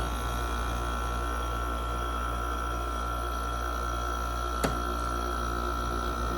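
2016 Frigidaire window air conditioner running steadily: a low hum with a steady high tone above it. A single sharp click about four and a half seconds in.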